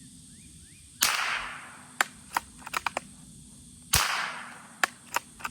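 Two shots from a Rossi bolt-action .22 LR rifle firing subsonic rounds, about three seconds apart, each trailing off in an echo. Between and after the shots come quick runs of sharp clicks from the bolt being worked.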